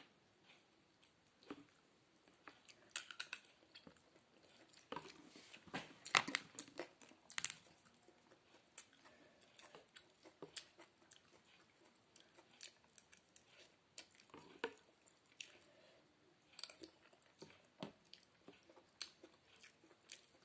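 A person chewing and eating noodle soup close to the microphone, with scattered small clicks. They are busiest from about five to seven and a half seconds in.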